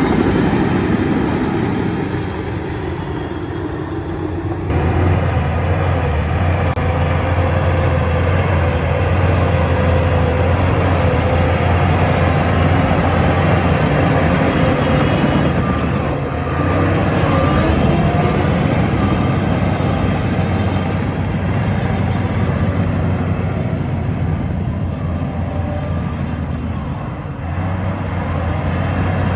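Bulldozer's diesel engine working steadily under load. It grows louder about five seconds in and eases off briefly midway and again near the end.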